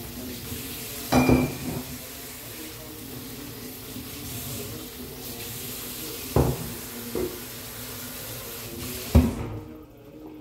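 Kitchen tap running into a sink during hand dishwashing, with four short knocks of dishes and bottles against the sink and counter, the last the loudest. The water shuts off near the end.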